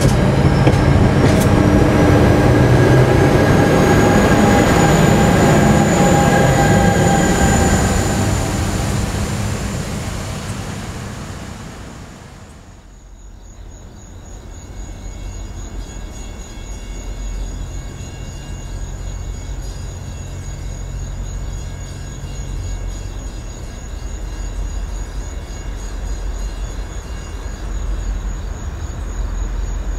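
NJ Transit passenger coaches rolling past, a loud steady rumble of wheels on rail with a thin rising squeal, fading away over several seconds. About halfway it gives way to a quieter steady background: a thin high-pitched drone with a low hum beneath it.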